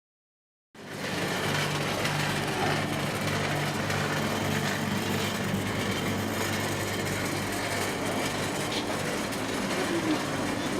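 Steady vehicle noise: a low engine hum under an even rushing noise, coming in suddenly about a second in after dead silence.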